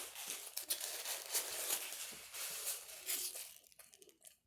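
Close, crinkly tearing and rustling handling noise, dense with small clicks, lasting about three and a half seconds and dying away near the end.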